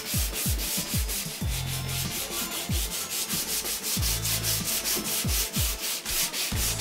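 500-grit sandpaper on a rubber sanding block, rubbed by hand in quick back-and-forth strokes over a cured sealer coat on a thin metal panel. It makes a dry scratchy hiss that pulses several times a second.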